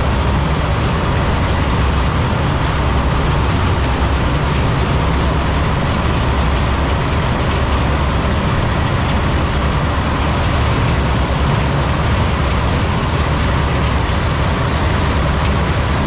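A combine harvester running steadily: a constant, loud engine-and-machinery drone with a deep low rumble and no changes in pitch or level.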